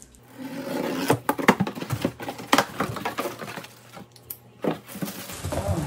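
Cardboard box being cut open and its flaps pulled back: an irregular run of scrapes, taps and rustles of cardboard with a few sharp clicks.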